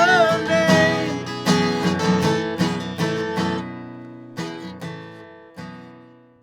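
Closing song on acoustic guitar: a held sung note fades about a second in, then strummed guitar chords slowly die away and stop.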